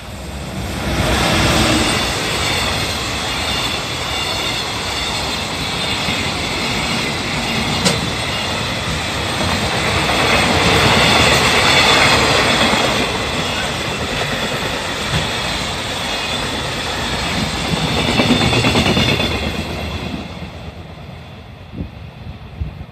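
Freight train hauled by an EF210 electric locomotive passing close by, with the rumble of the train and the clickety-clack of the wagon wheels over the rail joints. It builds within the first two seconds, runs on loudly and then fades near the end as the last wagons go by.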